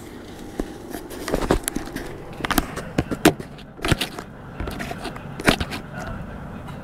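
A string of irregular sharp clicks and knocks, handling noise from hard objects being moved and set down, over a steady low background hum.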